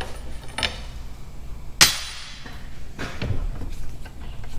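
A few separate sharp knocks and clanks of tools at work on the 1957 Ford Fairlane's old steering gearbox as it is being taken out. The loudest is a hard strike just under two seconds in, with two lighter knocks about a second later.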